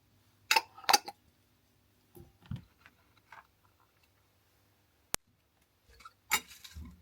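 Household objects being handled: two sharp clicks or knocks, a few softer knocks, a single brief click, and a short burst of clatter near the end.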